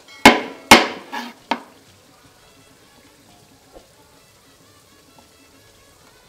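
Kitchen knife chopping through a hard dried salted fish (koobi) on a wooden chopping board: four sharp, loud strikes in quick succession within the first second and a half, each with a brief crunching tail.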